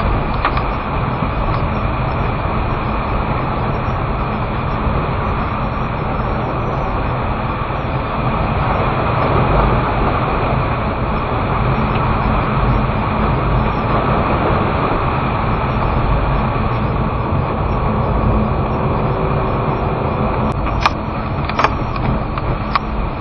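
A car's engine and tyres on a wet, snow-edged road, heard from inside the cabin: a steady rumble and hiss, with a few sharp clicks near the end.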